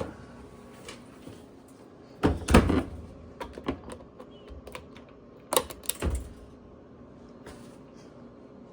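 Hard objects being handled: two bursts of knocks and clatter, a few seconds apart, with lighter clicks and taps between them.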